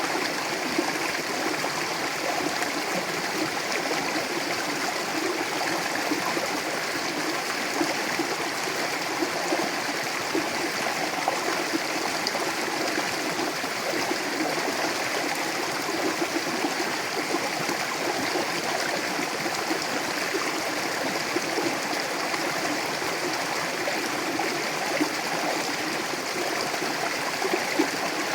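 Mountain river running over rocks: a steady, unbroken rush of water with small gurgles and splashes.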